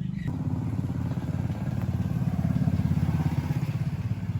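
Engine of a rice-milling machine running steadily with a fast, even chugging beat.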